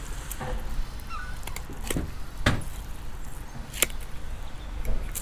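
Sharp knocks of a filleting knife against the board and the fish, several of them a second or so apart, the loudest about two and a half seconds in. A gull calls faintly about a second in.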